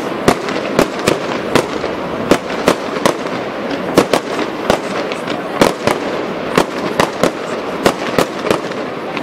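Aerial firework shells bursting in quick succession: sharp bangs about two a second over a steady background of noise.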